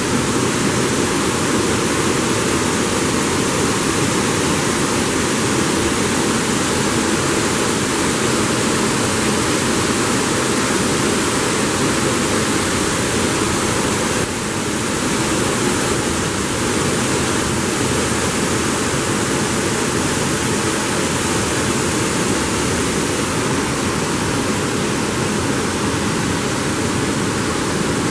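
Water rushing steadily through a river sluice, a loud even noise that keeps up unbroken.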